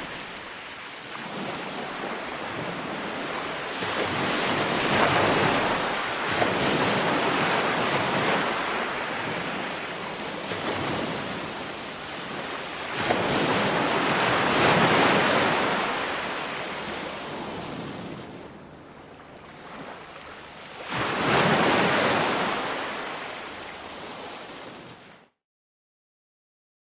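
Ocean waves breaking and washing in a rolling hiss that swells and ebbs in several surges. The sound cuts off suddenly to silence near the end.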